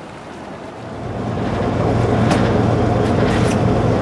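Party fishing boat's engine running, coming in about a second in and swelling to a loud, steady hum.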